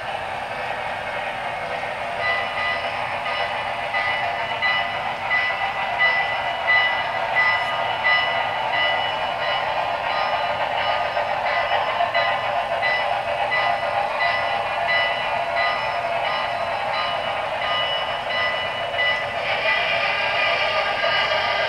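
Paragon3 sound decoder in an HO scale Norfolk & Western Y6b 2-8-8-2 steam locomotive model, playing steam sounds through its speaker. A steady run of exhaust beats comes with a steady ringing tone over it, and the sound grows louder and fuller over the last couple of seconds as the locomotive nears.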